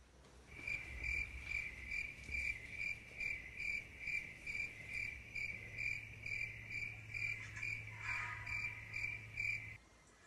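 Cricket chirping in an even pulsing rhythm, about two to three chirps a second, over a steady low hum. It cuts off suddenly near the end.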